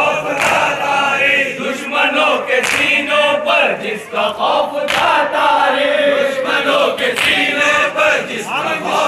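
A crowd of men chanting a noha, a Muharram lament, together, led by a reciter on a microphone, with sharp strikes of chest-beating matam in between.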